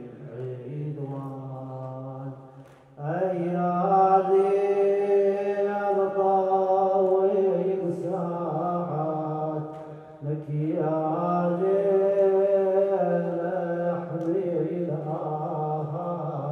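A man chanting an Arabic mourning elegy solo, in long held melodic lines. He pauses briefly for breath about three seconds in and again about ten seconds in.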